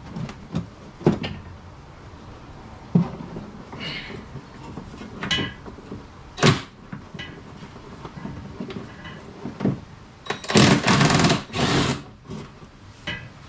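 Knocks, clunks and short scrapes of hands working at a car's wheel arch, pulling back the plastic wheel arch liner, with one sharp knock midway and a longer rasping, noisy stretch of about a second and a half near the end.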